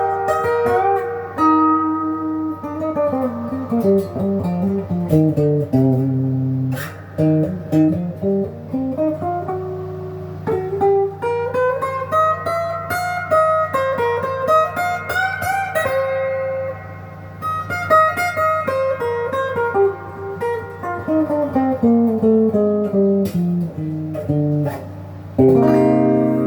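Epiphone Les Paul Junior electric guitar, its single bridge pickup with the volume rolled back and the tone rolled off, played through the amp's own overdrive so that it sounds cleaned up. Single-note runs fall and climb through the neck, with the treble cut. A fuller chord rings out near the end.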